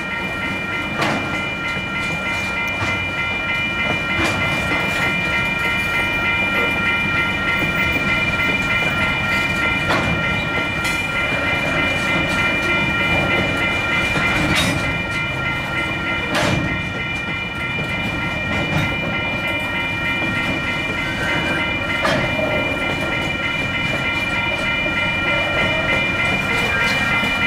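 Container freight wagons rolling past at speed, the wheels clattering over the rail joints with occasional sharp knocks, under a continuous rumble. Several steady high tones sound throughout, one of them pulsing, most likely the level crossing's warning bell ringing while the lights flash.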